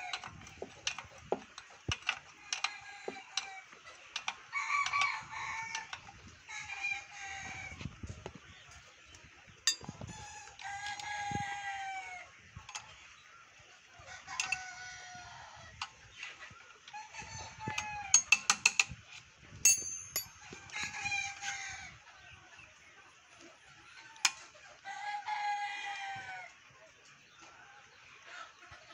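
Chickens calling over and over, each call a drawn-out note about a second long that drops in pitch at the end, coming every few seconds. Between the calls come sharp metal clicks and taps of hand tools on the engine, the loudest a quick run of clicks a little past the middle.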